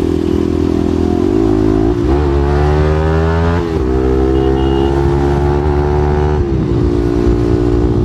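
Single-cylinder sport motorcycle engine running under way. Its note dips and climbs with the throttle about two, four and six and a half seconds in.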